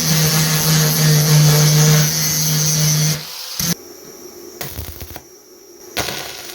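Power tool motor running steadily with a low hum, then switching off about three seconds in. After that come quieter scattered metallic clicks and a knock.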